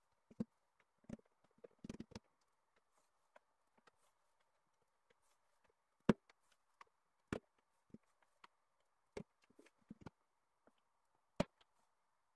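Long thin wooden rolling pin (oklava) knocking on a wooden tabletop as layered baklava dough is rolled out around it: irregular knocks and light thuds, the loudest about six seconds in and near the end.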